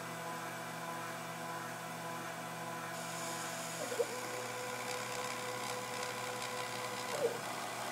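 Hobby CNC router cutting acrylic: its stepper motors whine at steady pitches that shift with a short glide about four seconds in and again near the end as the move changes, over the high hiss of the cutter in the plastic.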